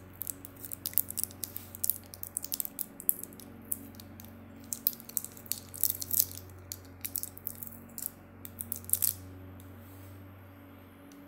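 Crinkling and crackling of the paper-and-adhesive tape of a strip of ceramic disc capacitors as the parts are pulled free by hand: a quick, irregular run of sharp little crackles that dies away about nine seconds in. A steady low hum sits underneath.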